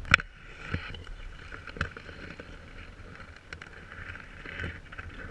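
Wind rumbling on the microphone, with a few sharp clicks and knocks from the camera rig being handled. The loudest click comes just after the start.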